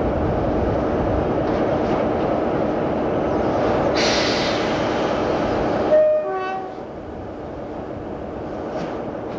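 Passenger train running at speed, heard from an open carriage window: steady rail and wind noise. About four seconds in a sudden rush of hiss lasts about two seconds. It ends in a brief loud blip with a few short chirping tones, after which the running sound is quieter.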